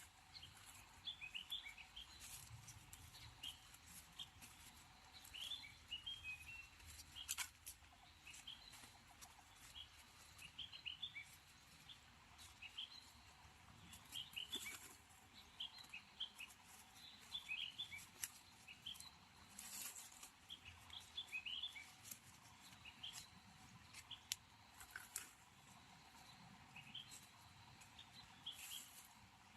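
Faint chirping of small birds, short calls repeating every second or so, with occasional soft rustles and clicks.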